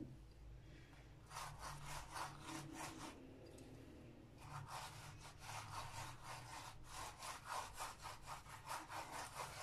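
Red silicone pastry brush stroking oil and red pepper sauce over a lavash flatbread: a faint, quick rasping swish, several strokes a second, with a short pause in the middle.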